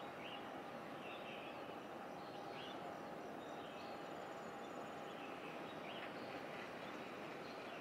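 Faint outdoor ambience: a steady hiss with a thin, steady hum, and short high bird chirps every second or two.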